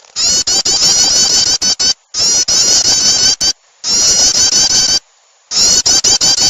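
Recorded prinia (prenjak) 'starter' song used as a lure call for small birds: loud bursts of rapid, high, repeated chirps, each a second or so long with brief gaps between them. There are four bursts in all.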